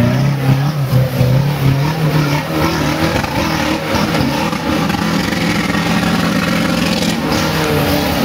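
Suzuki Samurai off-road special's engine held at high revs under full load as the 4x4 climbs a steep dirt slope, its pitch wobbling as the wheels bite and spin. There is a rough rushing noise of tyres churning loose dirt under it.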